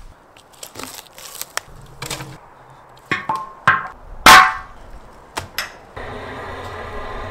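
Butchering a bison carcass: a string of sharp knife cuts and chops through meat and bone, the loudest strike about halfway through. Near the end comes a steady hiss lasting about a second, which stops abruptly.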